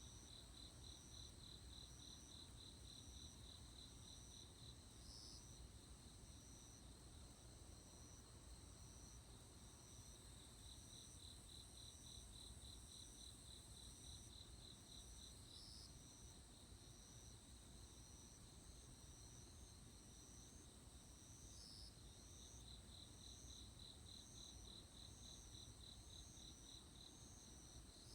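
Crickets trilling faintly: a fast pulsed trill that starts and stops in spells of several seconds, over steadier, higher-pitched chirring, with a faint low hum underneath.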